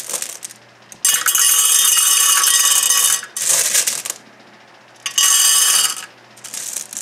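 Glass jewels (flat glass gems) poured into a clear glass bowl, clattering and clinking with a bright ringing. One long pour about a second in, a short one just after, and another near the end.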